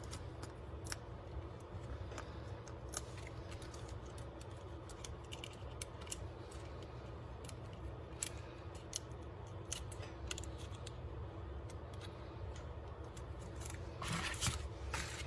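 Scattered light clicks and rustles of paper and cardstock being handled, as foam dimensional adhesive pads are peeled and pressed onto card pieces, with a louder rustle near the end.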